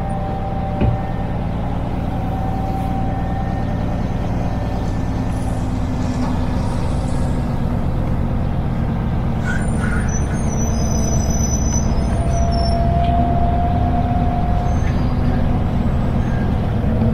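Scania truck's diesel engine and road noise heard from inside the cab while driving, a steady drone that slowly grows louder through the middle. A single click about a second in.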